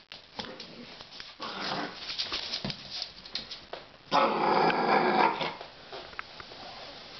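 Cocker spaniel puppy growling in play at a broom, with a louder growl lasting just over a second about four seconds in. Scattered light clicks and knocks in between.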